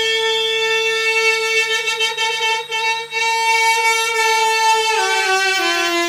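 Duduk playing a long held note with a slight waver, then stepping down through two lower notes near the end.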